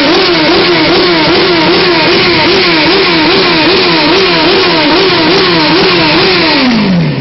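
Electronic siren sound effect from a motorbike: a wavering tone that rises and falls about twice a second, then glides down in pitch and cuts off near the end, over steady background noise.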